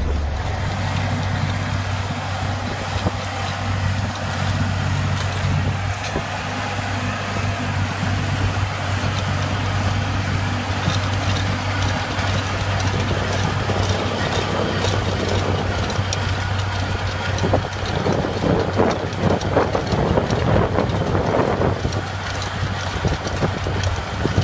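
Heavy machine engine running steadily, with louder mechanical clattering for a few seconds about three-quarters of the way through.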